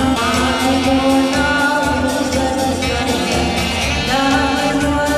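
Dance music with singing over a steady beat.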